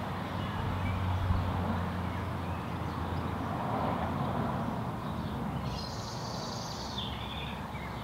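Garden ambience: steady outdoor background noise with a low rumble, and a brief high bird call about six seconds in.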